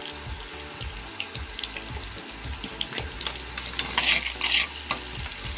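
Sun-dried bottle gourd pieces frying in hot oil: a steady sizzle with scattered crackles, swelling to a louder hiss about four seconds in.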